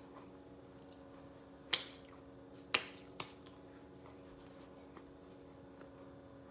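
Three sharp clicks over a faint steady hum: a loud one nearly two seconds in, then two more about a second later, close together.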